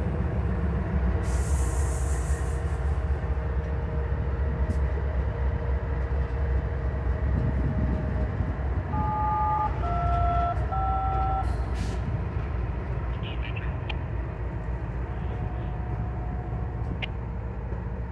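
Diesel locomotive running with a steady low rumble, and a train horn sounding three short two-note blasts about nine seconds in.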